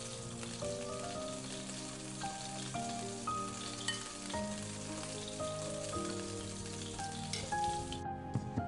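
Slices of A5 wagyu beef sizzling steadily in a frying pan, with a gentle melody of held notes playing over it. The sizzle cuts off shortly before the end while the music goes on.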